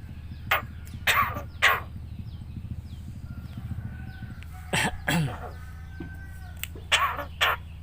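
Javan myna giving short, harsh cough-like bursts, its mimicry of a human cough: three in the first two seconds, a longer one falling in pitch about five seconds in, and two more near the end. A steady low hum runs underneath.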